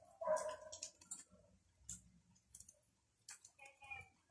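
Faint, scattered light clicks and taps from a small spice container being handled over the wok while black pepper is added.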